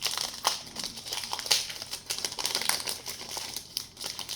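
Foil booster-pack wrapper of a Pokémon trading card pack crinkling as it is handled and opened, a run of irregular crackles.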